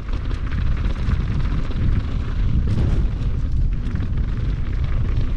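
A downhill mountain bike rolling fast over loose dirt and gravel. There is a steady low rumble of wind buffeting the camera microphone, with a continuous rattle and crunch from the tyres and bike.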